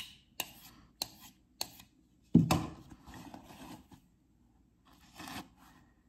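Kershaw Livewire out-the-front knife blade slicing through a paper towel as a sharpness test: a few short sharp ticks, then a longer rasping tear of the cut about two and a half seconds in, and a shorter one near the end. The blade cuts the towel.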